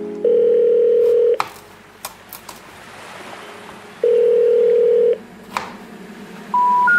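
Two long, loud electronic beeps of about a second each, with a few sharp knife clicks on a wooden cutting board between them as cucumbers are sliced lengthwise. Near the end a rising run of electronic tones begins, stepping up in pitch.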